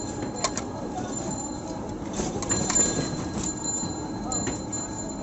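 Steady street background noise, with several short sharp clicks and taps from a fuchka vendor's steel spoons, plates and jars as he fills puris.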